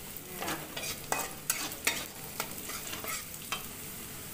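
Metal spatula scraping and knocking against a metal wok as sliced petai are stirred into hot oil, with a steady sizzle of frying underneath. The stirring strokes stop about three and a half seconds in, leaving only the sizzle.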